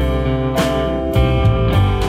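Background music led by plucked guitar, with notes and chords struck at a steady pulse about every half second.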